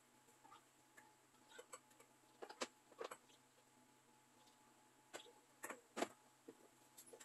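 Tin cans knocking and clinking against each other and the shelf as they are arranged by hand: a scattering of light knocks, bunched around two and a half to three seconds in and again around five to six seconds in.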